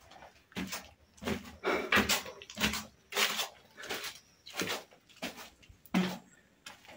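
A run of short knocks and scuffs, about two a second, irregularly spaced with no steady beat.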